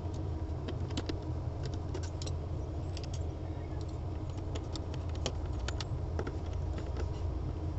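Small, irregular metallic clicks and ticks as a screwdriver bit turns the stock screws into a helmet's visor base plate, over a steady low background hum.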